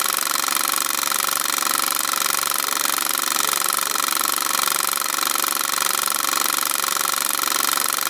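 A film projector running: a fast, steady mechanical clatter.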